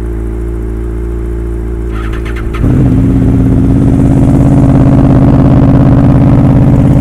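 Honda CBR600RR inline-four idling, then the Honda VFR800's starter cranks for about half a second, two seconds in. Its V4 catches and settles into a louder steady idle, a start after weeks of sitting.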